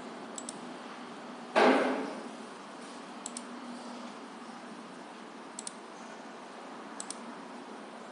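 Computer mouse button double-clicked four times, each a quick pair of light clicks, over a faint steady hum. About one and a half seconds in, a brief loud noise that fades away over about half a second.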